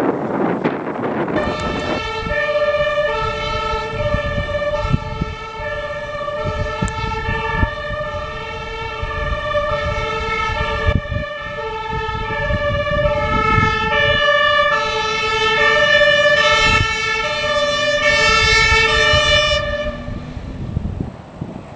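German fire engine's two-tone siren (Martinshorn) sounding as the vehicle drives on an emergency run, switching back and forth between two pitches. It starts about a second in and stops near the end, over the low rumble of the truck's engine and road noise.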